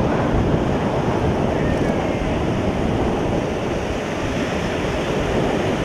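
Ocean surf breaking and washing ashore, a steady rush of noise, with wind buffeting the microphone.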